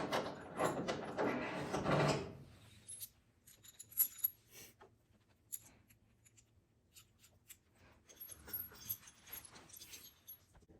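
Rattling and rustling for about two seconds, then scattered light clicks and knocks, the sharpest about four seconds in: hard objects being handled and set down.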